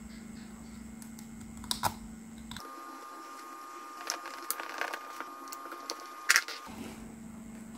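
Small plastic parts of a miniature model engine being handled and fitted by hand and with a small screwdriver: scattered light clicks and taps, a cluster of them past the middle, and a sharper click about six seconds in. A steady low hum runs underneath and drops out for about four seconds in the middle.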